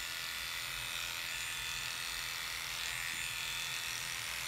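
Electric dog grooming clippers running with a steady motor buzz as the blade clips a Havanese's coat short down the shoulder.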